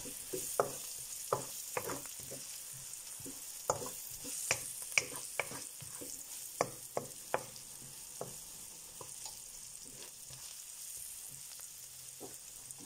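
Onions, garlic and chilli flakes sizzling as they fry on a hot pan, with a spatula scraping and knocking against the pan as they are stirred. The scrapes come often at first and thin out in the later half.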